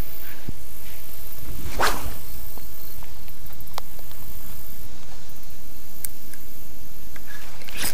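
A spinning rod swishing through the air once on a cast, about two seconds in, followed by a few faint clicks from handling the reel and a sharp click near the end.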